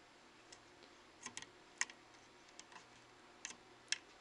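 Faint, irregular plastic clicks, about eight in four seconds, as the small plastic plugs of an LCD TV's fluorescent backlight tubes are worked out of their sockets on the inverter board.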